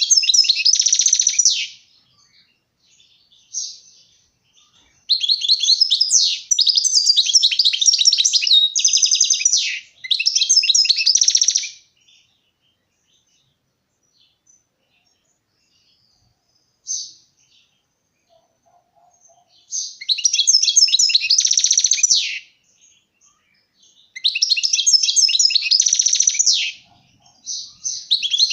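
European goldfinch singing: rapid twittering, trilling phrases of a few seconds each, one running about seven seconds, broken by pauses with an odd single call between them.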